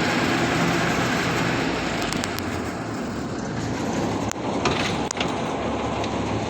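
Combine harvester running: a steady, dense mechanical drone with an engine hum, and a few sharp clicks about four to five seconds in.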